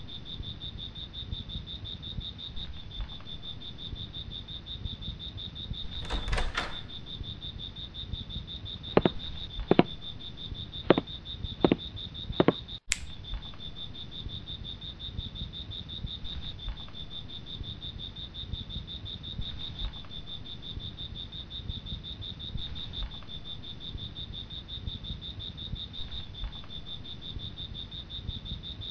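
Steady, high-pitched insect chirping, like crickets, with five sharp clicks about nine to twelve seconds in.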